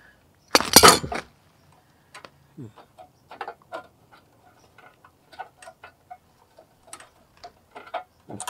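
Pliers working at a stuck plastic knob on an MTD snowblower engine, making a string of small, irregular clicks and creaks as the knob is gripped and twisted. A louder scraping clatter comes about half a second in.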